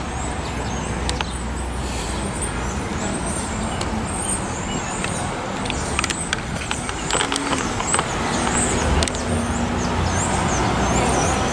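City street traffic: cars passing, a steady wash of road noise that grows a little louder toward the end.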